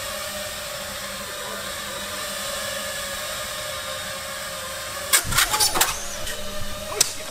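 Brushless motors of a 5-inch FPV quadcopter running at a steady pitch, with a cluster of sharp cracks about five seconds in and one more near the end.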